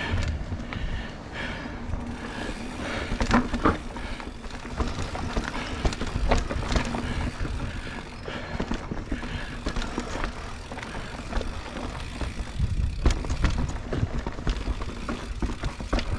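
Mountain bike ridden over rough singletrack: tyres rolling on dirt with frequent clicks and knocks of chain and frame over bumps, over a low rumble. It gets rougher and louder twice, a few seconds in and again near the end.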